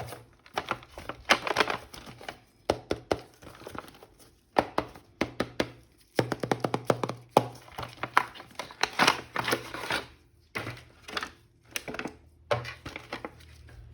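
Plastic packaging crinkling and tearing, with irregular clicks and knocks of hard plastic toy parts being handled.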